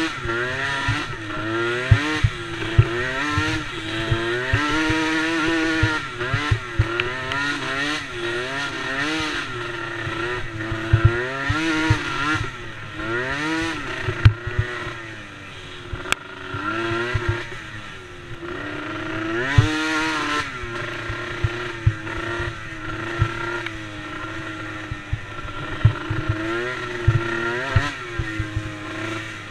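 Small youth ATV engines racing, the engine note repeatedly rising and falling as the throttle is opened and closed, with scattered knocks and clatter.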